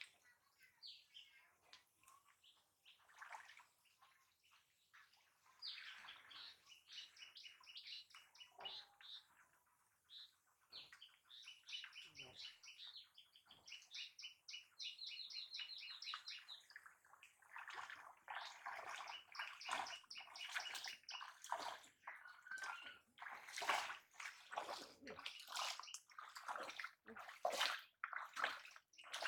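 Shallow muddy water sloshing and splashing as hands grope inside a bamboo polo fish trap pressed into the water, feeling for the fish caught under it; the splashing gets busier about halfway through. A bird trills in quick repeated runs in the first half.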